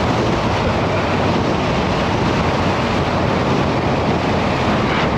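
Engler Desat super-quad's 5.2-litre V10 engine pulling under power at speed, with wind rushing over the open-air microphone, steady throughout.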